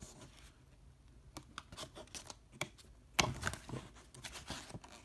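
Paper pages of a small booklet being flipped and handled in the hands: a run of light rustles and taps, the loudest about three seconds in.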